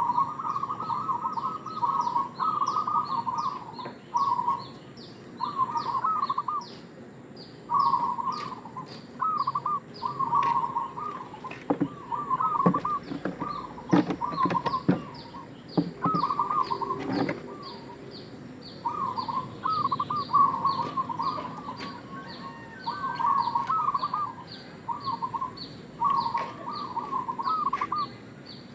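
Zebra dove (perkutut) cooing in repeated short, rapid trilled phrases about a second long, with brief pauses between them. A steady series of short high-pitched chirps runs underneath, and there are a few sharp clicks about midway.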